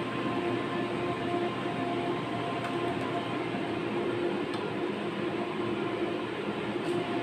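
Steady hum of saltwater aquarium pumps and filtration running, with a constant wash of noise and a few faint clicks.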